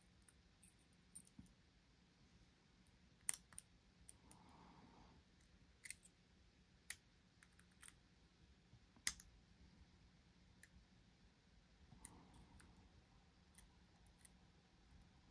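Faint, irregular metallic clicks and ticks from a pick and tension wrench working the pins inside a dimple lock, a few of them sharper than the rest.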